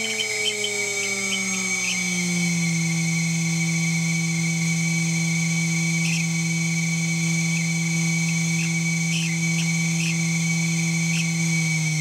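Water-cooled 2.2 kW CNC router spindle running with a steady whine. Its pitch falls over the first two or three seconds, holds, then drops again near the end. Over it sits a steady high squeal with several short chirps, which the owner suspects come from bad bearings.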